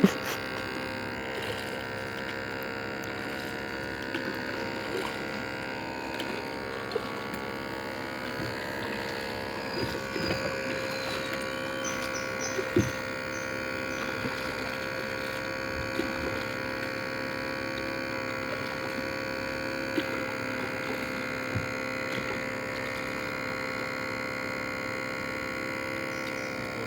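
A steady mechanical drone of many fixed tones, like a small motor running at constant speed, with a few faint knocks over it.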